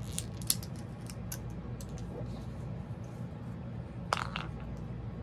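Small plastic clicks and taps as a tiny plastic doll and its clothes are handled, with a sharper click about half a second in and a brief clatter about four seconds in, over a steady low hum.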